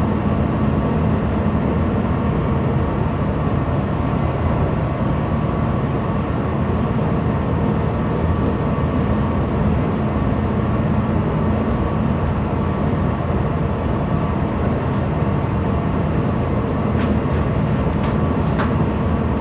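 Steady low drone of a ship's engines and machinery, with a constant hum running through it; a couple of faint clicks near the end.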